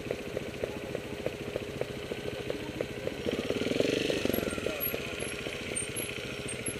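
Trials motorcycle engine running at low revs with an even beat, rising briefly in revs about three to four seconds in and dropping back.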